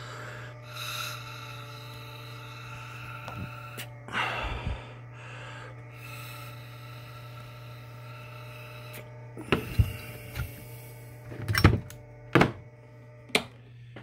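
Air blown by mouth through an RV water heater's gas valve, held open by its powered solenoids, hissing softly in a few breaths over the first half. Then several sharp knocks as the metal valve assembly is handled and set down, over a steady low hum.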